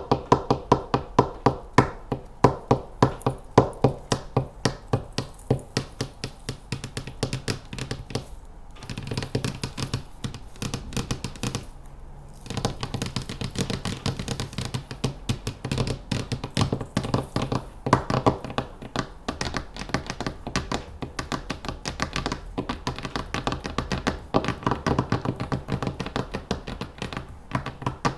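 Fingernails tapping quickly and rhythmically on a hard object, several taps a second, with two short pauses about 8 and 12 seconds in.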